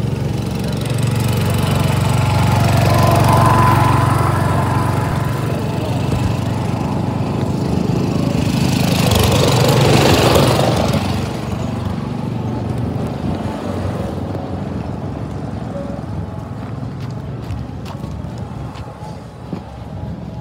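An engine running steadily with a low, even drone. A rushing noise swells up and fades away about nine to eleven seconds in, and the drone grows fainter after that.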